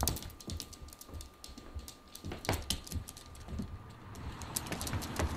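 AI-generated soundtrack of a dachshund running on a hardwood floor: its claws click sharply and irregularly. From about four seconds in, a steady outdoor hiss of ambience rises.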